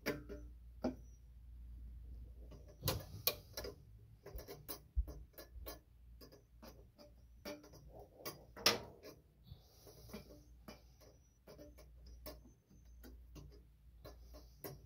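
Irregular sharp metal clicks and taps of hand tools working the fuel line fittings on a Corvair engine's carburetors, with a few louder clinks about three and nine seconds in.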